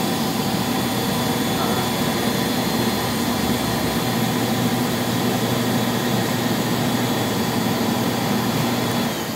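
Floor scrubber's motors running with a steady hum, cutting off shortly before the end and beginning to spin down.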